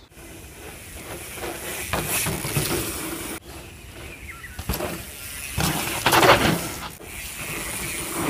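Mountain bikes riding a dirt trail: rushes of tyre and air noise that swell as a rider passes, broken off abruptly twice.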